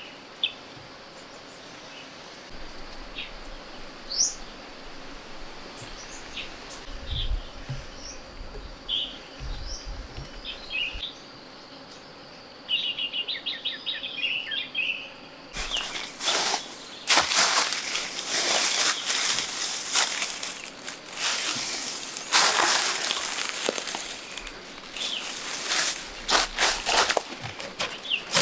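Small birds chirping and trilling over a quiet outdoor background. About halfway through, loud rustling and scraping with repeated sharp knocks and clatters suddenly take over.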